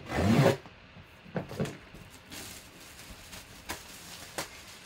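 Shrink-wrap plastic on a cardboard box being slit with a knife and torn away: a loud rip at the start, then a few light knocks and the crinkle of the loose plastic being pulled off, with a couple of sharp clicks.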